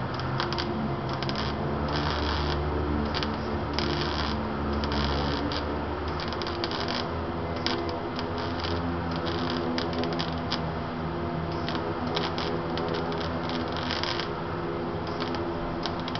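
Electric arc welding on a car's underbody: the arc crackles and sputters in irregular runs with short breaks, over a low steady hum.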